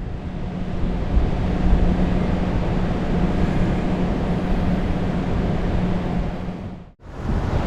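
Motor vehicle running at a steady speed: a constant low hum under an even rush of wind and road noise, cut off abruptly near the end.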